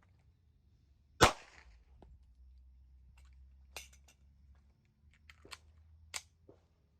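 A single pistol shot from a Sig Sauer P365 XL 9mm about a second in, with a short echo. Several much fainter sharp clicks follow later.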